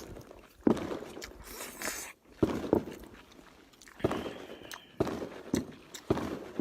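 A person eating close to the microphone: irregular chewing and mouth noises with short clicks.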